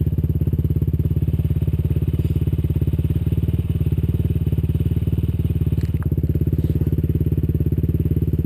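Single-cylinder four-stroke sport quad engine running at a steady speed, its firing pulses even throughout.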